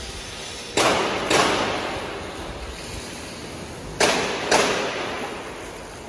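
Four sharp bangs in two quick pairs, the first pair about a second in and the second about four seconds in, each ringing out with a long echo through a large hall.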